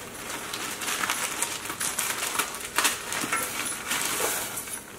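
Green beans and peas shaken from a plastic bag into a steel pot, the pieces dropping in with scattered small clicks and rattles and one louder clack nearly three seconds in.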